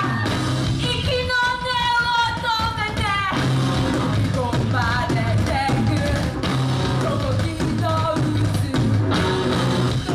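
Rock band playing live: a singer over electric guitar, bass and drum kit, in an upbeat song.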